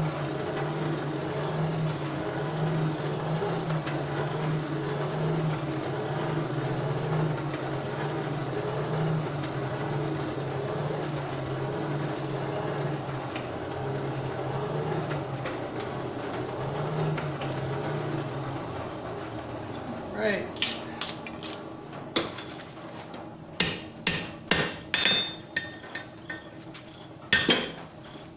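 Coal forge blower running with a steady, slightly wavering hum while the steel heats in the fire. It stops near the end, and a quick series of hammer blows rings out on the anvil, about a dozen strikes, as the hot steel is forged.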